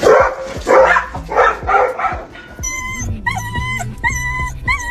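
Dogs yipping and barking in about four short bursts. About halfway through, a rhythmic tune of short, evenly spaced high notes over a low bass line takes over.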